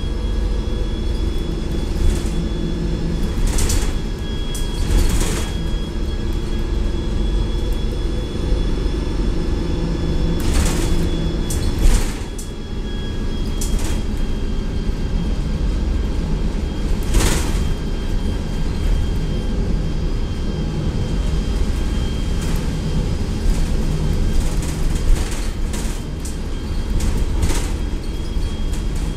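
Cummins ISL diesel engine of a 2004 Gillig Advantage T29 transit bus running, with a faint steady high whine over the engine drone and scattered rattles and clunks from the bus body. The engine note drops about twelve seconds in, then builds again.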